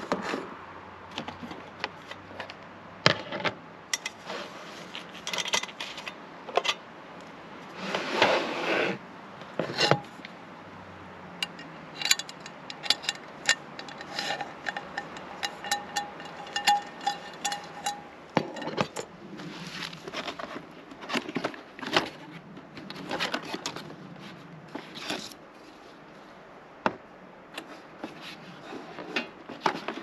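Camp cookware and utensils being handled: scattered clinks and knocks, with longer scrapes about eight seconds in and again a little past the middle.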